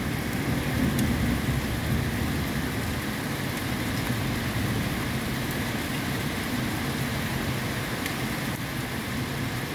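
Steady rain falling in a thunderstorm, with a low thunder rumble dying away over the first couple of seconds.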